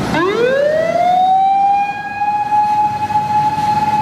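Japanese fire engine's siren winding up from low to a high, steady wail over about a second and a half, then holding it.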